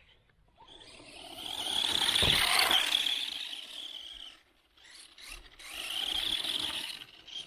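Redcat Blackout XTE 4WD electric RC truck driving at speed, its motor and gears whining. It swells and fades twice: a longer, louder run over the first few seconds, then a shorter one about five and a half seconds in.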